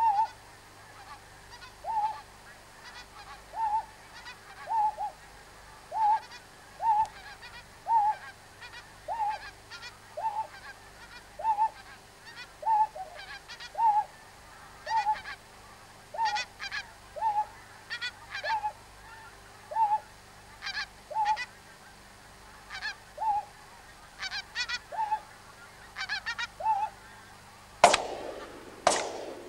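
Pink-footed goose calls, a short honk repeated about once a second, then two shotgun shots about a second apart near the end, louder than anything else.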